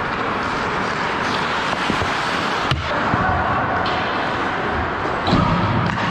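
Ice hockey game on a rink: a steady wash of skates on ice, broken by a sharp knock about two and a half seconds in and a louder cluster of knocks near the end as play comes back toward the net, sticks and puck clattering.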